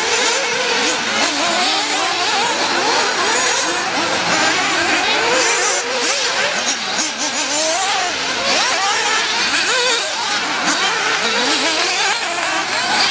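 Several 1/8-scale nitro off-road buggies' small two-stroke glow engines running around the track together, their high-pitched whines overlapping and constantly rising and falling as they rev up on the straights and back off into the corners.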